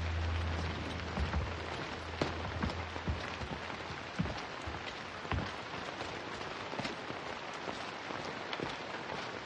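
Steady heavy rain falling, with scattered sharp drips and taps. A low hum fades out over the first three seconds.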